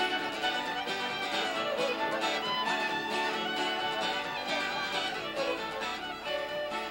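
Instrumental background music led by a fiddle.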